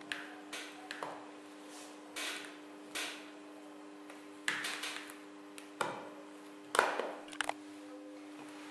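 Scattered light clicks and scuffs of an iPhone 5 screen assembly being pressed down into the phone's frame, the loudest about seven seconds in.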